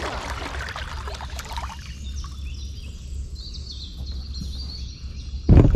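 Water splashing and trickling around a kayak for the first couple of seconds, then small birds chirping high over a steady low rumble. A loud thump comes near the end.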